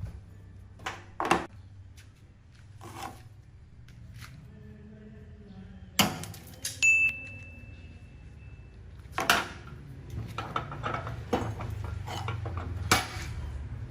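Irregular metal-on-metal knocks and clinks from steel pieces being struck and handled, about half a dozen loud ones; one strike about six seconds in leaves a high ringing note for around two seconds.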